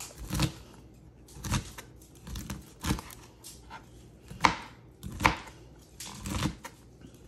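Pestle pounding long beans and other ingredients in a mortar for som tam: irregular dull knocks, about one a second, a few with a brighter ring.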